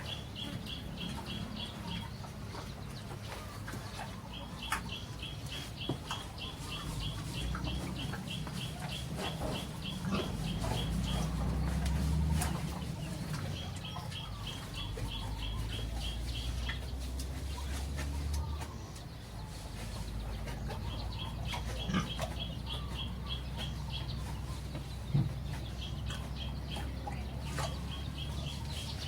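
Birds chirping: runs of rapid, evenly spaced high chirps lasting a couple of seconds each, repeating several times, over a steady low rumble with scattered clicks and knocks.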